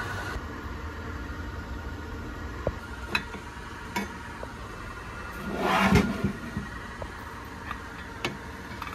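Handling noise from a metal DC gearmotor being moved about on a workbench: a few sharp clicks and knocks, and a louder brief rush of scraping about six seconds in, over a steady background hum. The motor itself is not running.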